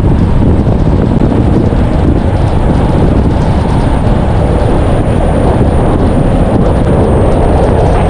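Waterfall roaring: a loud, steady rushing noise that holds even throughout.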